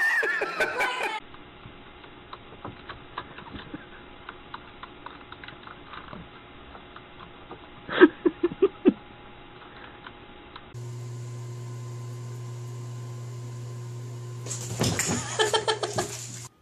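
Computer keyboard keys clicking as someone types, with a short burst of laughter partway through. Then a steady low hum, and a loud pitched cry of about two seconds near the end.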